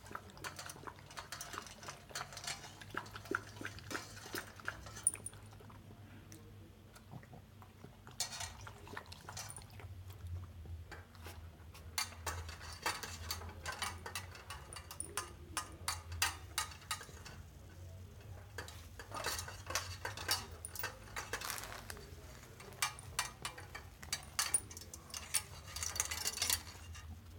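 Puppy eating from a stainless steel bowl on a stand: chewing and the metal bowl clinking and rattling in bursts, with short pauses between them.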